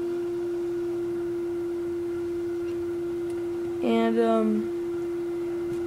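A steady, constant hum on a single pitch that does not waver. A short spoken sound from the young woman cuts in about four seconds in.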